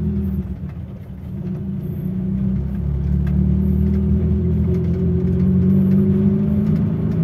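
1995 Daihatsu Feroza's 1.6-litre four-cylinder petrol engine running under way, heard from inside the cabin together with road noise. The engine sound drops briefly about a second in, then grows louder and holds steady as it pulls.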